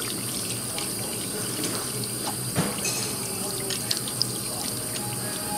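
Tap water running into a sink while hands are washed in the stream, with a few short, louder splashes about halfway through and later on.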